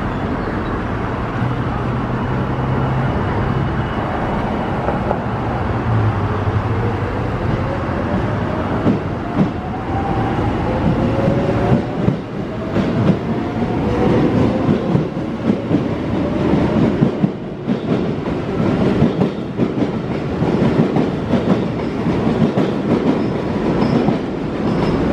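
JR West 207 series electric train departing, its Toshiba GTO-thyristor VVVF inverter whining in tones that rise in pitch stepwise as it accelerates. In the later part the wheels clatter rhythmically over the rail joints as the cars pass.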